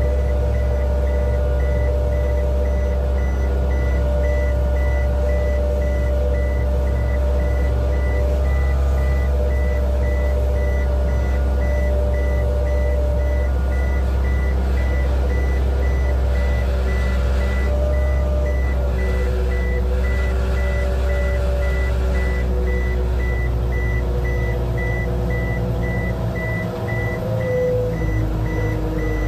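Towbarless aircraft tractor running under load with a steady low rumble and hum, while its high warning beeper sounds over and over at an even pace. The hum shifts in pitch in the last few seconds.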